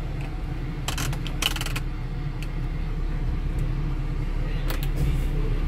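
Car engine idling steadily, heard from inside the cabin. A few short clicks come about a second in and again near the end as the air conditioning controls are worked.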